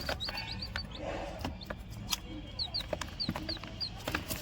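Newly hatched chick peeping: short high cheeps in quick runs of several, with scattered small clicks and knocks.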